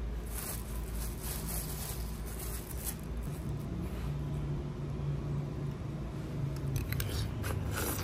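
Metal spoon scooping and scraping into watermelon flesh, with soft crunching of the fruit, in scattered strokes in the first few seconds and again near the end, over a steady low hum.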